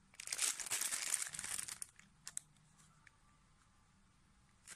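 Thin clear plastic bag crinkling as it is handled for over a second, followed by a couple of light clicks. Another burst of crinkling starts near the end.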